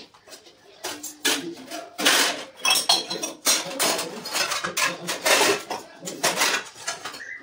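Metal kitchen utensils — plates, pots and cutlery — clattering and clanking against each other as they are handled and stacked for washing, in quick irregular knocks that start about a second in.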